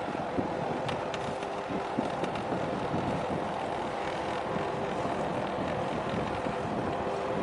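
Steady hum and rumble of a large container ship under way close by, with a few faint steady tones in it and wind buffeting the microphone.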